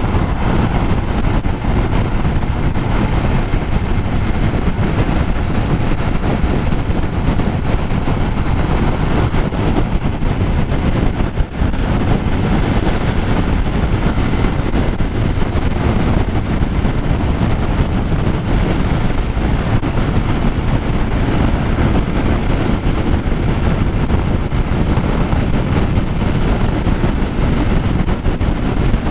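Steady rush of wind and road noise over the rider's microphone on a Yamaha XTZ Crosser motorcycle moving at highway speed in strong wind. The noise is heaviest in the low end and dips briefly about eleven seconds in.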